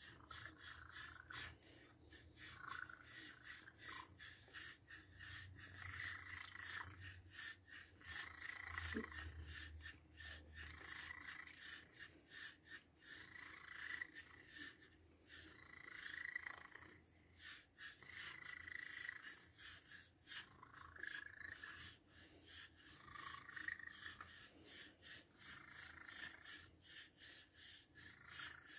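Quiet rasping strokes of a long wooden stick scratching through a cat's fur, about three strokes a second, with the cat moaning in between.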